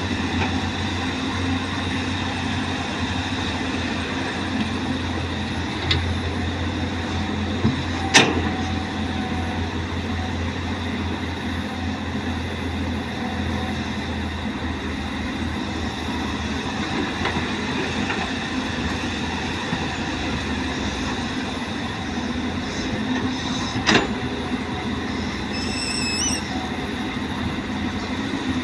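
Caterpillar excavator running steadily at work, its diesel engine humming under a rattle of machinery. There are two sharp metallic clanks, one about eight seconds in and one near the end.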